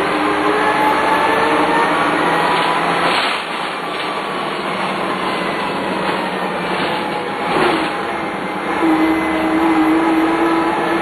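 Dennis Lance bus under way, its Cummins 6CT diesel running with the whine of the ZF 4HP500 automatic gearbox, the whine's pitch rising and falling with speed. Near the end a steady whining tone holds for a couple of seconds.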